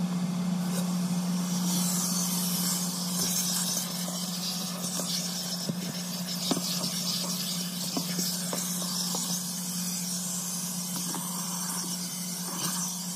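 Vacuum cleaner running steadily, a motor hum under a rushing hiss of air, with scattered small clicks as debris is sucked up or the nozzle knocks against the car's seats.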